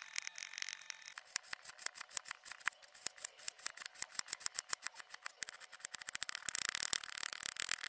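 A knife blade slicing and chopping through a dry, crumbly bubble bar: quick crisp crunching cuts, several a second, with a louder, denser run of crumbling near the end.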